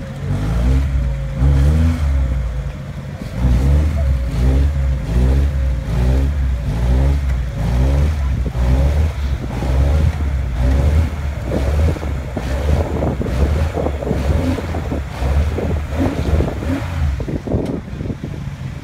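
Lada Niva's engine revving hard again and again, pitch rising and falling about once a second, as the four-wheel-drive struggles to pull through deep lakeshore mud. The revving eases off near the end.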